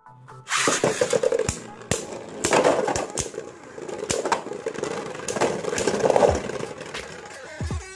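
Two Beyblade Burst spinning tops launched into a clear plastic stadium about half a second in. They then spin and scrape around the stadium floor, with many sharp clacks as they strike each other and the walls.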